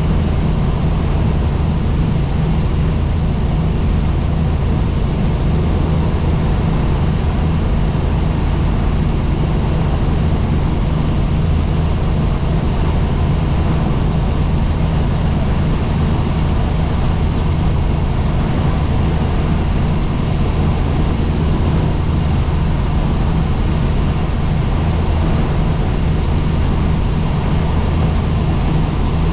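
Helicopter in flight, its engine and rotor noise a loud, steady drone with a strong low hum.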